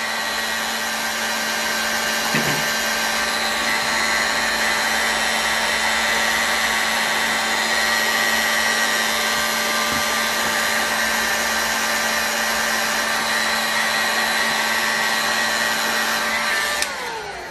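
Electric heat gun blowing steadily while it heats an aluminium engine crankcase so a bearing can be fitted, with a steady hum and whine over the rush of air. Near the end it is switched off and the fan winds down with falling pitch.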